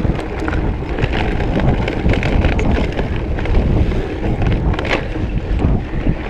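Mountain bike rolling fast down a dirt trail: wind buffeting the camera microphone over the rumble of tyres on dirt and leaves, with frequent clicks and rattles from the bike.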